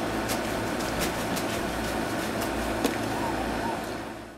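Steady low mechanical hum with a scatter of faint short clicks and rustles, fading out near the end.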